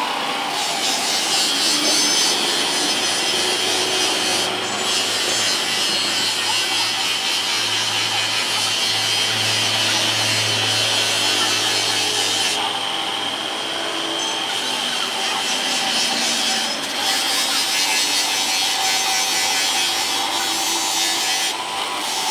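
A power tool running steadily with a high whine while it works a plastic headlight lens, with short dips every few seconds as it eases off the surface.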